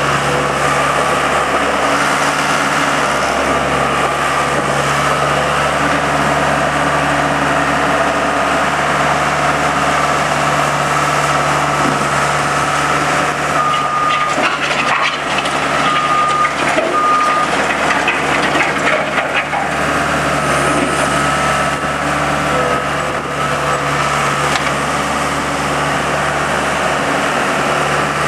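Case 40XT skid steer loader working through a demonstration: its diesel engine runs steadily throughout. Around the middle the machine clatters for a few seconds and three short backup-alarm beeps sound.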